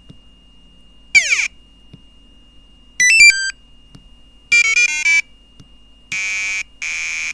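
Arduino-generated electronic sound effects, square-wave bleeps in short bursts. First a quick falling sweep about a second in, then a few stepping beeps, a rapid chattering run of changing pitches, and two steady buzzy tones near the end.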